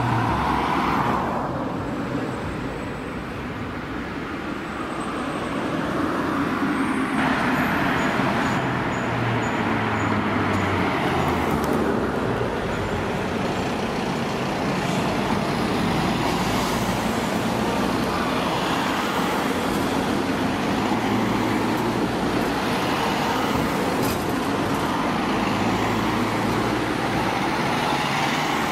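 A convoy of emergency vehicles (fire engines, vans and ambulances) drives past one after another. Their diesel engines run steadily and the tyres hiss on the road, with no sirens sounding.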